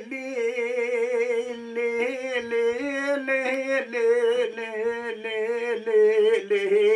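Man singing a Kurdish uzun hava (dengbêj-style long song) unaccompanied, in free rhythm. He holds long notes and decorates them with fast wavering trills, with brief breaks for breath.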